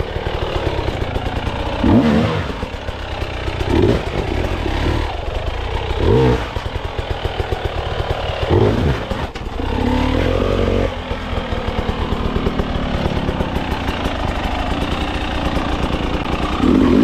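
KTM 300 two-stroke dirt bike engine revved in short bursts about every two seconds, the pitch rising with each burst, as the bike claws its way up a rocky creek; for the last several seconds it runs at a steadier, even note.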